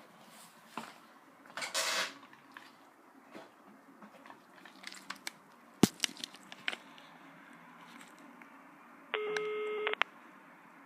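Scattered faint clicks and rustles, with a short noisy burst about two seconds in and a sharp click near the middle. Then an electronic beep, one steady tone lasting just under a second.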